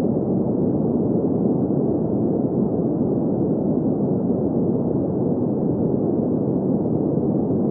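Steady green noise for sleep: an even, unchanging hiss centred in the low-middle range, with nothing above the middle.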